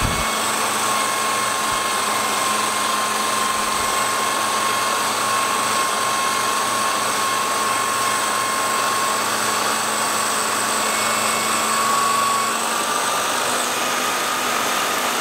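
Electric drill running steadily with a felt polishing wheel in its chuck as a steel bowie knife blade is polished against it: a noisy, steady motor whine over a rushing hiss, the whine rising a little near the end.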